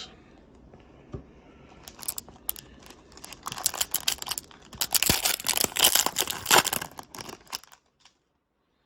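Foil wrapper of a trading-card pack being torn open and crinkled: a dense run of crackling from about two seconds in. It cuts off abruptly to dead silence near the end.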